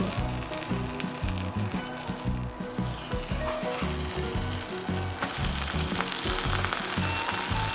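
Food frying in hot oil in a pan: a steady sizzle with crackling, growing louder about five seconds in. Background music plays underneath.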